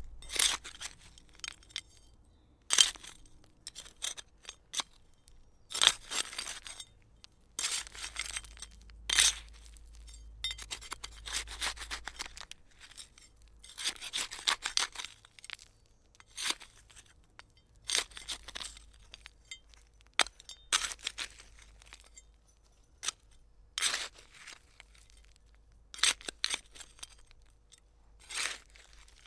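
A hand trowel digging: a run of short scraping strokes of the blade through soil, coming irregularly about a second apart.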